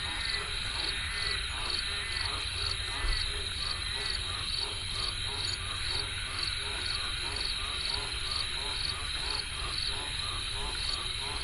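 A chorus of frogs croaking, with many short, overlapping calls repeating rapidly throughout. A steady, evenly pulsing high trill runs behind it.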